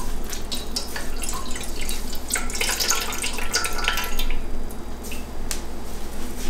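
Dye liquid dripping and trickling from a wet wool skein into a bowl as the skein is pulled from its jar and squeezed, in irregular drips and splashes that come thickest around the middle.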